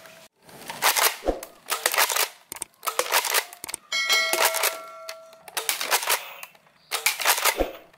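Nerf Elite 2.0 Shockwave dart blaster being pumped and fired several times, a series of sharp plastic clacks and knocks as darts hit the targets. About four seconds in, a hit sets off a ringing ding that lasts about a second and a half.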